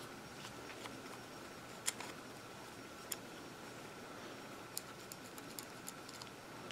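Faint, scattered small clicks and ticks of a screwdriver working a grip screw on a Beretta 92FS pistol, with a few clustered together in the second half.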